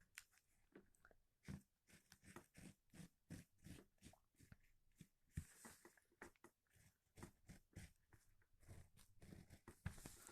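Faint, irregular scratching strokes and light taps of a pattern being traced onto fabric.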